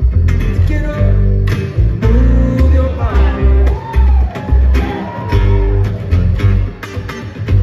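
Live acoustic string band playing: an upright bass plucks a steady, prominent bass line under two acoustic guitars picking.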